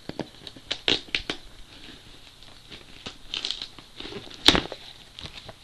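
Cardboard shipping box being opened by hand: tearing and crinkling of the box and its packing in a string of short scrapes and clicks, with one loud sharp crack about four and a half seconds in.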